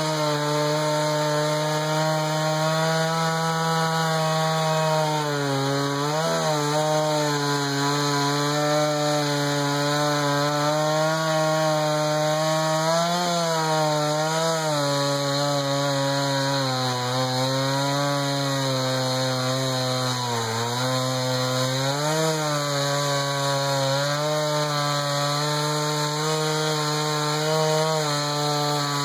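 Jonsered 2091 two-stroke chainsaw (about 93 cc) with a 20-inch bar and rip chain, running under load in a mini mill and ripping a pine cant lengthwise. The engine note holds steady but dips in pitch and recovers several times.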